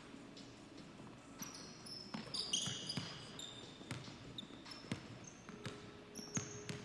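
Basketball bouncing on an indoor court, with irregular thuds and short high sneaker squeaks during play. The squeaks come thickest a couple of seconds in.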